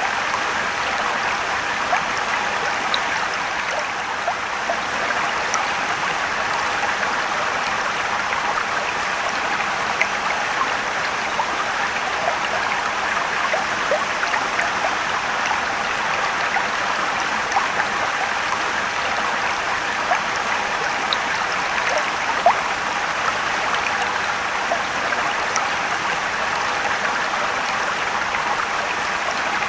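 Mountain stream running over rocks below a waterfall: a steady rush of water with small splashes and trickles scattered through it.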